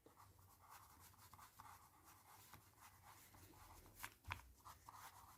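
Near silence with faint, intermittent scratching of writing or drawing by hand, and two soft taps about four seconds in.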